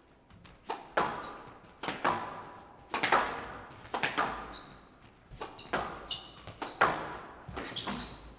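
Squash ball struck back and forth in a rally: sharp, echoing racket hits and wall impacts about once a second, often in quick pairs, with short high squeaks of players' shoes on the court floor.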